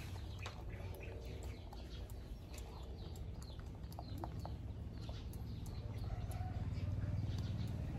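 Chickens and small birds calling in the background, with small close clicks as a macaque's fingers pick through a man's hair. Under it runs a low engine hum that grows louder near the end.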